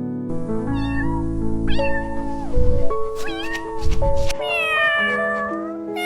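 Kitten meowing about five times over gentle background music, with a longer, falling meow about four and a half seconds in.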